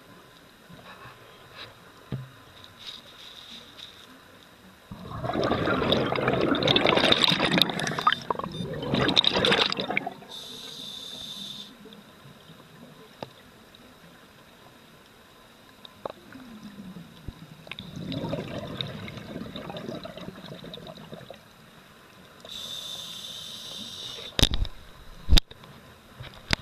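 Scuba diving underwater: two long rushes of exhaled bubbles from the diver's regulator, each followed by a shorter high hiss as the regulator delivers air on the inhale. Two sharp knocks come near the end.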